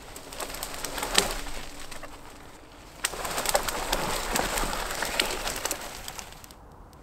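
Rustling and crunching in forest litter, with a sharp twig snap about a second in. From about three seconds in comes a longer, denser stretch of crackly rustling as a bundle of dry grass and birch-bark tinder is handled.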